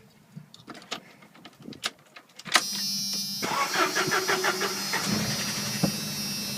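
Jeep YJ 2.5L four-cylinder engine cranked from cold after sitting overnight. It catches after less than a second of cranking and settles into a steady idle. A quick rattling knock comes right as it fires and dies away after a second or two, the ticking/knocking the owner is trying to diagnose.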